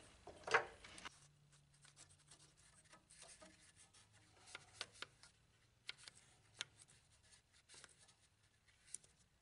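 Light brushing, scratching and small ticks of a brush working dust off a tube radio's metal chassis, with one louder rustle about half a second in.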